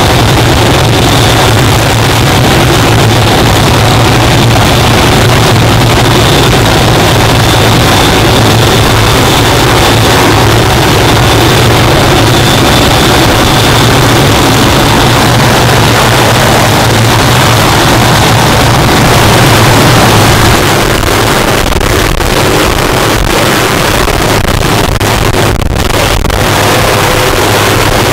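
Hughes OH-6 Cayuse helicopter running close by: loud, steady turbine whine over the beat of its rotor. About two-thirds of the way through the sound changes as it lifts into a low hover, with rotor downwash buffeting the microphone.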